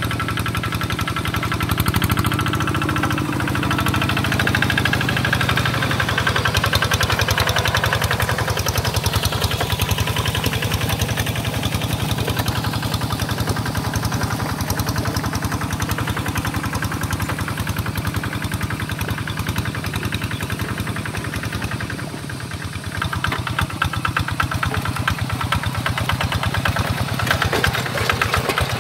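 Single-cylinder diesel engine of a two-wheel walking tractor running steadily with a fast, even firing beat as it pulls its cage wheels through paddy mud. It goes briefly softer about three-quarters of the way through, then comes back up.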